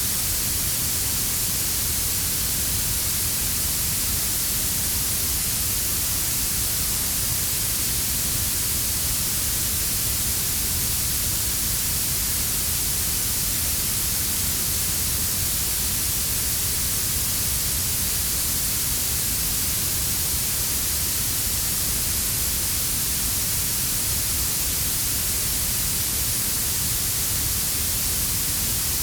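Synthetic blue noise: a steady, unchanging hiss weighted toward the highest frequencies, layered with a quieter brown-noise rumble underneath.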